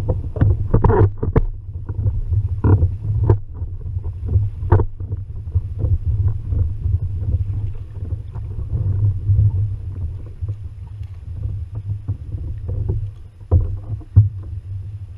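Steady low rumble of wind and water around a kayak, with scattered irregular knocks and clicks against the hull, a cluster in the first second or so and another near the end.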